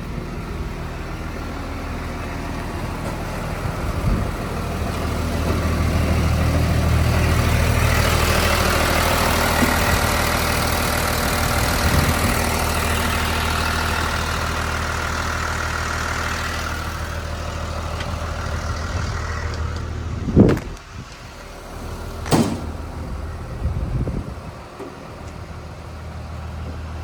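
Volvo EW210D wheeled excavator's diesel engine running steadily. It grows louder with a rushing noise for several seconds in the middle, then settles back. Two sharp clunks come near the end.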